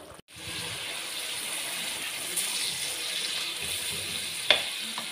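Chicken in tomato masala sizzling and bubbling in a metal kadai, a steady hiss, with one sharp knock of the spatula against the pan about four and a half seconds in.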